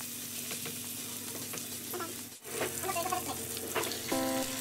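Diced onion and tomato sizzling in olive oil in a wok, with a spatula stirring and scraping the pan. About two and a half seconds in, the sound cuts out briefly and the frying comes back a little louder as raw baby squid are slid into the pan.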